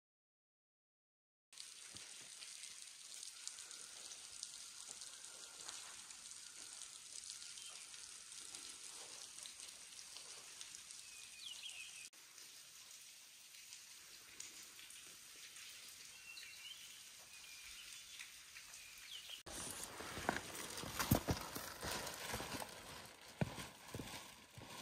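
Footsteps of hikers walking on a rocky trail against a low outdoor hiss, the steps growing louder and closer in the last few seconds.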